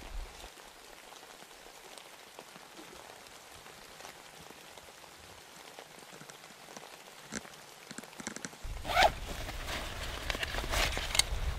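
Freezing rain falling steadily, a light patter with scattered drips. About nine seconds in, a low rumble of wind on the microphone sets in, with louder crackling.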